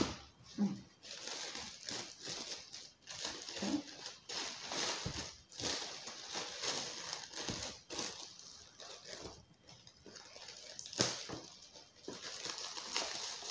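Shiny foil-like gift wrapping paper crinkling as it is handled and pulled open by hand, in uneven spurts with short pauses.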